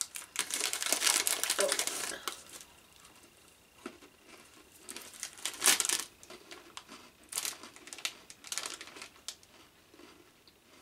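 Plastic snack packet crinkling in irregular bursts as it is handled, with the longest stretch near the start and shorter bouts later.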